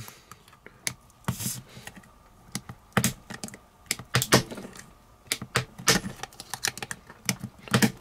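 The can opener of a Leatherman Juice S2 multitool levering and punching its way through the lid of a tin can, pounding through rather than slicing. It makes a run of irregular sharp metal clicks, a few a second.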